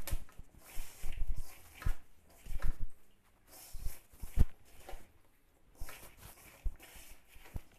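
A hand mixing dry wheat flour, spices and sliced onion in a stainless steel bowl: irregular rustling and scraping, with a few short knocks against the bowl.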